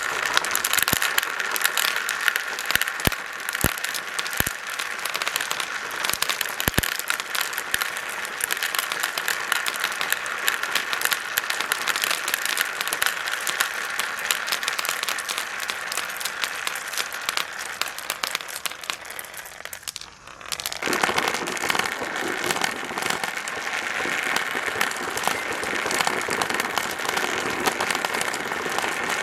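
Many marbles rolling and clattering down a marble run track: a dense stream of small clicks. It fades briefly about twenty seconds in, then starts again at full level.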